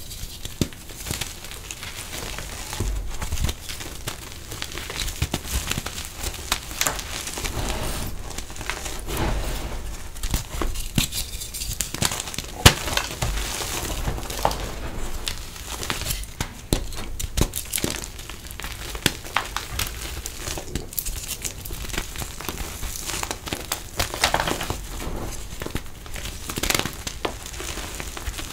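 Hands crushing and crumbling burnt reformed gym chalk: a dense, gritty crunching and crackling of chunks breaking apart, with many small sharp snaps. Toward the end, crumbs and powder sift through the fingers onto the pile.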